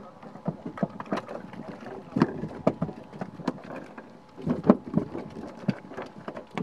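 Irregular knocks and thumps on the deck of a small fishing boat, some sharp, with a cluster of heavier thumps a little after halfway, over a faint steady engine hum.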